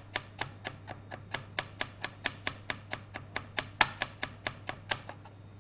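Large kitchen knife chopping garlic and ginger finely on a wooden cutting board: an even run of quick, sharp strikes, about five a second.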